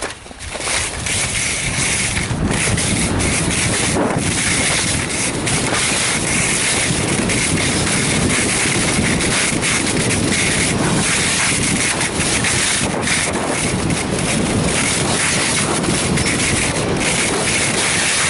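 Loud, steady wind noise buffeting an action camera's microphone while going fast down a snowy ski slope. It rises sharply about half a second in.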